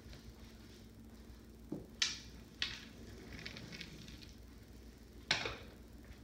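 Pair of casino dice handled and thrown on a felt craps table: light clicks and rattles as they are picked up and set, then a sharp clack about five seconds in as they hit and tumble before settling.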